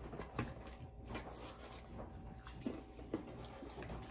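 Faint eating sounds: chewing on chicken wings, with scattered small clicks and rustles of the food being handled in its paper wrapping.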